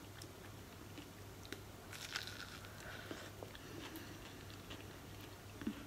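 Faint chewing of a mouthful of grilled sweet corn on the cob, with scattered soft crunches and small clicks.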